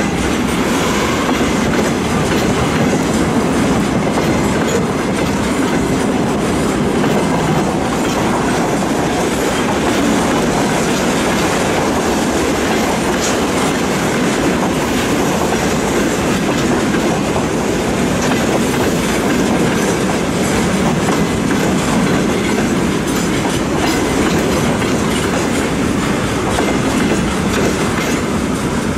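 Freight train of railway tank cars passing, its steel wheels running on the rails with a steady noise.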